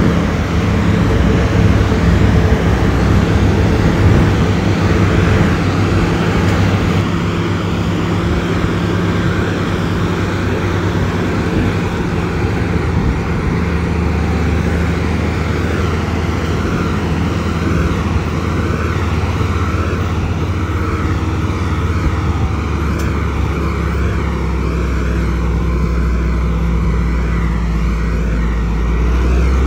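Diesel engine of a heavy road-building machine running steadily, a low even drone whose deepest note grows stronger about halfway through.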